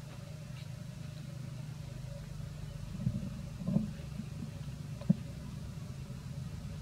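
A steady low engine hum, like a motor vehicle idling, with three short knocks between about three and five seconds in, the last one the sharpest.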